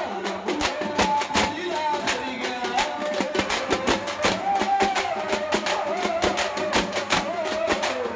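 A troupe of dappu frame drums beaten with sticks in a fast, even rhythm, with a sliding melody line held above the drumming.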